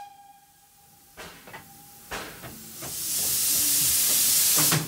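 A few light metallic knocks, then steam hissing loudly from the locomotive for about two seconds, starting a little past halfway and cutting off suddenly near the end.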